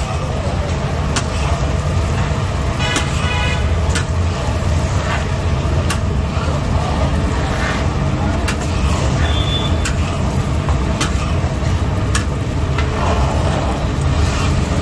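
Street ambience: a steady low rumble of road traffic with background voices, and sharp clicks every second or two.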